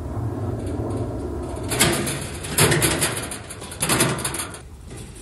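Husky steel-tray wheelbarrow with a flat-free tire being wheeled over a door threshold and doormat, with long-handled tools loose in the tray. The wheel rolls with a steady low rumble, and three loud clattering knocks come as the barrow bumps over the sill and the tools rattle against the steel tray.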